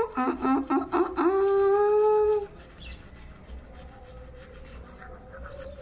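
A woman's voice mumbling through a mouthful of toothpaste foam while brushing her teeth, with no clear words. About a second in it becomes one long held note, which stops about two and a half seconds in; after that only faint low sounds remain.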